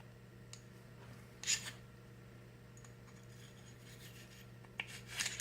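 Small bore brush scraping through a Glock 19 barrel: a short scrubbing rub about a second and a half in and another near the end, with a few faint ticks between, over a low steady hum.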